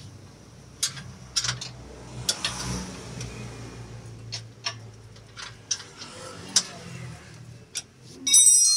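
Hand tools at work on car parts: scattered sharp clicks and taps, irregularly spaced, over a low steady hum, then a brief ringing clatter near the end.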